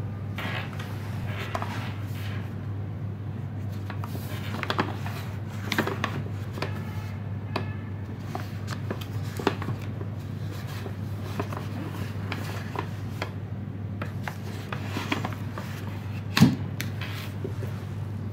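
A cardboard firework cake box being handled on a wooden table: scattered rubbing, scraping and small knocks as it is picked up and turned over, then a sharper knock near the end as it is set down. A steady low hum runs underneath.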